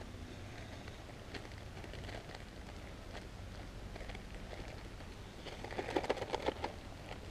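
Plastic bag crinkling and crackling as fry bread dough is squeezed and mixed inside it by hand, with a louder flurry of crinkles about six seconds in.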